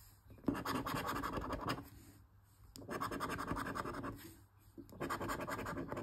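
Scratch-off lottery ticket being scratched, the latex coating scraped away in three quick spells of rapid back-and-forth strokes with short pauses between.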